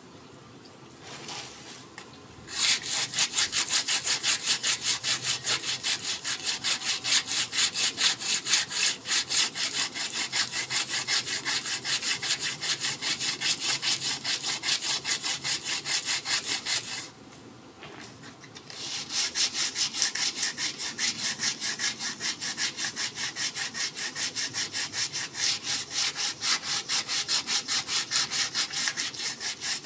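Sandpaper rubbed by hand along a forest red gum didgeridoo in quick, even back-and-forth strokes. It starts a couple of seconds in, stops for about two seconds past the middle, then carries on.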